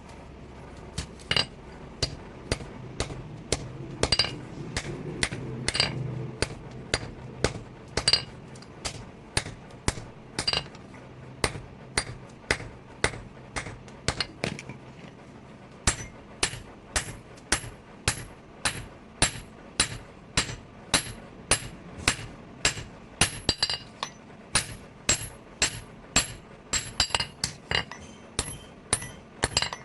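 Hand hammer striking steel on an anvil, about two blows a second, each with a short metallic ring. A low hum underneath stops about halfway through, and after that the ring of each blow is brighter.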